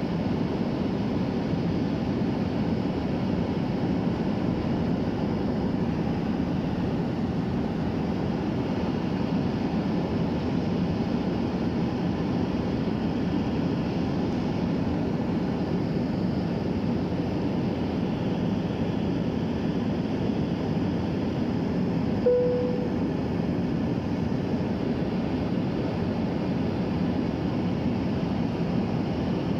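Steady cabin noise of an airliner in flight: an even, low rush of engine and airflow. A brief single tone sounds about two-thirds of the way through.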